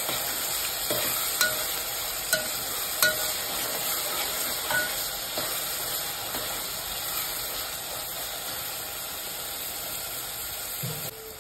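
Chopped onions, green chillies and curry leaves sizzling in hot oil in a metal pot as they are stirred with a metal spoon, which clinks against the pot now and then. The sizzle drops away near the end.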